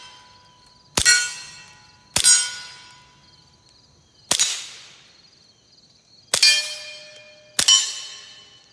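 Five shots from a suppressed FN 502 .22 pistol firing Winchester Super Suppressed ammunition, irregularly spaced over about seven seconds. Four of them ring a steel target, each a sharp clang with a long ringing fade. The middle shot gives a duller crack with no ring. The subsonic rounds are cycling the action.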